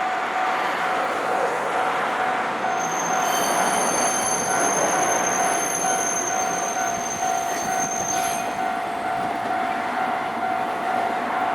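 Level-crossing warning signal on a tram line sounding steadily as a streetcar passes, with a high-pitched wheel squeal from about three seconds in until about eight and a half seconds in.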